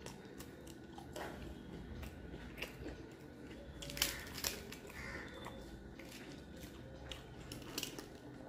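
A person chewing and biting food close to the microphone, with many short crisp crunching clicks; the loudest crunches come about four seconds in.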